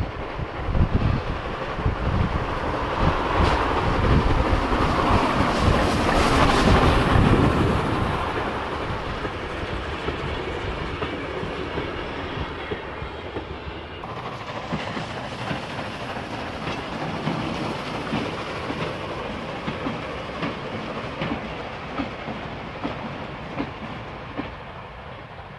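Cockerill 2, a small vertical-boiler steam locomotive, passing close by with its train of carriages rolling after it, loudest a few seconds in. After a sudden change about halfway through, the train goes on more quietly and steadily.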